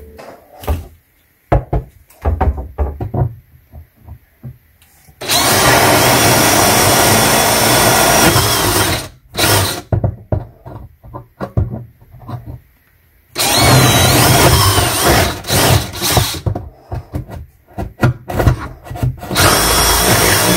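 Black & Decker jigsaw cutting through a cabinet shelf in bursts: knocks and clicks of the saw being set against the wood, then a long run of loud cutting, a pause with more knocks, and a second longer run with brief stops. It starts again near the end.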